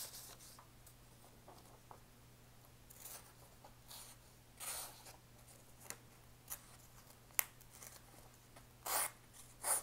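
Rough Ryder cotton-sampler pocketknife blade slicing through a sheet of hand-held paper in a cut test of its edge: several short papery swishes with a few small clicks, the loudest two near the end.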